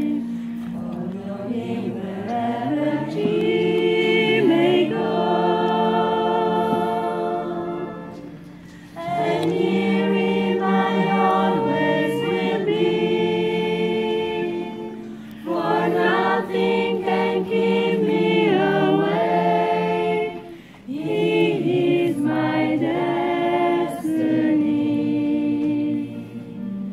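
Women's choir singing slow, held chords in long phrases over a sustained low note. The singing breaks off briefly about a third of the way in, just past halfway, and again about three quarters of the way in.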